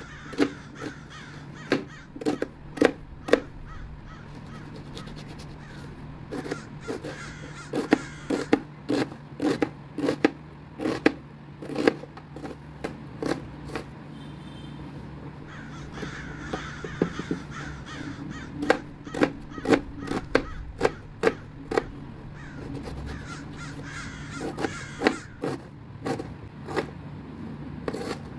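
Kitchen knife chopping a red onion on a plastic cutting board: sharp knocks of the blade on the board, in irregular runs of two or three a second with short pauses.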